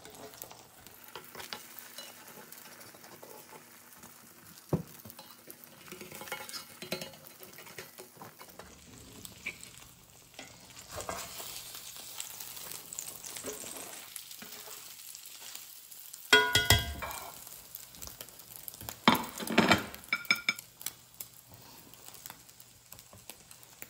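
Egg omelette sizzling softly in a cast-iron skillet while a spatula scrapes and taps against the pan, with two louder clatters in the last third.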